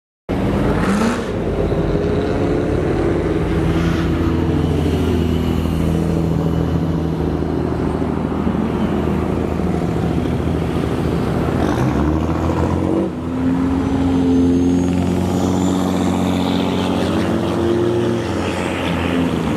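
Lifted pickup trucks driving past, their engines running and revving, with the engine note rising and falling. About thirteen seconds in there is a brief dip and another truck's engine takes over.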